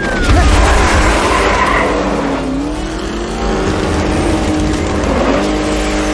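Animated vehicle's engine sound effect running, its pitch dipping and rising twice, with noisy tyre-skid sound in the first couple of seconds.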